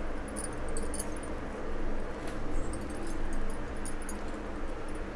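Glass bangles clinking lightly on a wrist as hands crush dried fenugreek leaves, over a steady background hiss.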